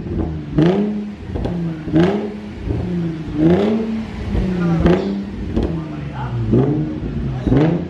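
Nissan 350Z's 3.5-litre V6 revved in place through an Invidia Gemini cat-back exhaust. It makes about six quick throttle blips, roughly one every second and a half, each rising in pitch and falling back to idle.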